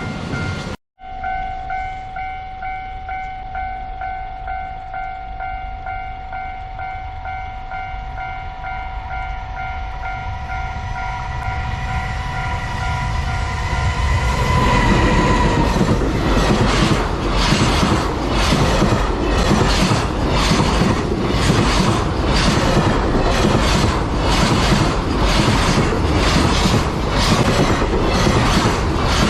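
A Japanese level-crossing alarm rings with steady, pulsing electronic tones. About halfway through, a JR Freight EF210 electric locomotive sounds a short horn blast and its freight train rolls through the crossing. The wagon wheels clack over the rail joints in a steady rhythm, about one and a half clacks a second, over a loud rumble.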